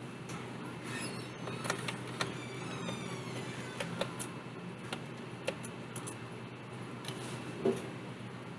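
Scattered small clicks, taps and scrapes of hands and tools working on a laptop's plastic case and parts, with one louder knock near the end, over a steady low hum.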